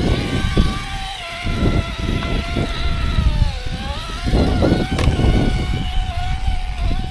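RC rock crawler's electric motor and gears whining steadily, the pitch dipping briefly about halfway through as it slows and picking back up, over irregular low rumbling.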